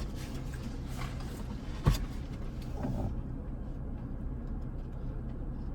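Steady low hum of a car heard from inside the cabin, with a single sharp click or knock about two seconds in.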